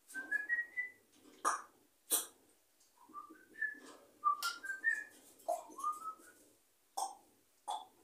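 African grey parrot whistling short rising notes, broken by several sharp, brief squawks or clicks.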